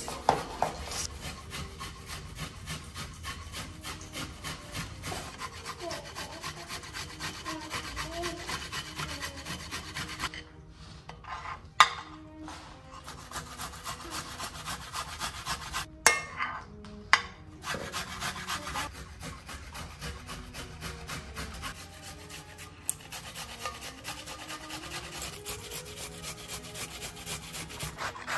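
Rhythmic rasping strokes of food being worked by hand, several a second, broken by two short pauses and a few sharp louder knocks.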